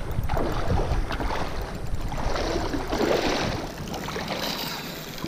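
Wind buffeting the microphone with water sloshing at the bank while a hooked fish is played on the rod; the wind rumble drops away about two thirds of the way in.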